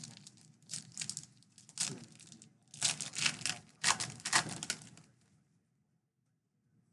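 Plastic wrapper of a Donruss baseball card pack being torn open and crinkled by hand, in a run of rustling bursts that stop about five seconds in.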